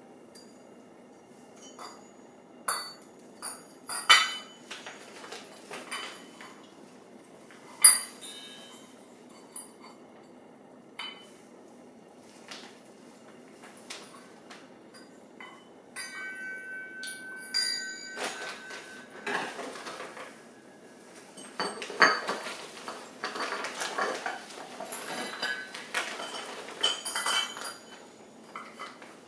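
Metal parts clinking and knocking as they are handled, in scattered sharp strikes, with a brief ringing tone about midway and a denser stretch of clatter in the second half.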